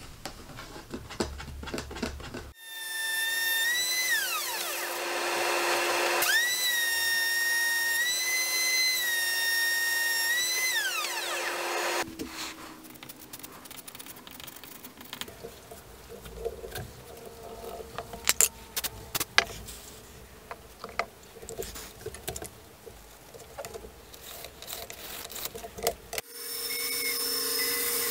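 A small power tool's electric motor whines up and winds down, then runs again for about five seconds and winds down. Scattered light taps and scrapes of wood handling follow, and near the end a bandsaw starts running as it cuts a walnut block.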